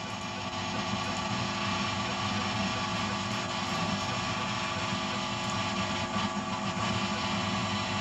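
Electrical interference noise through the speakers of a FireWire audio interface setup: a steady buzzing hiss with many fixed whining tones, tied to the computer screen. It is a power-ground problem that stops once the amplifier is plugged into a different wall socket from the computer.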